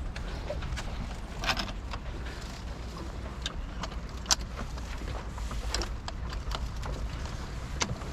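Strong wind buffeting the microphone aboard a sailing yacht as a steady low rumble, with five or so sharp knocks and clicks scattered through it, the loudest a little after the midpoint.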